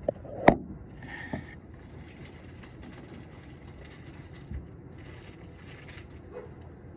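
A single sharp click about half a second in, then a faint, steady, low background rumble.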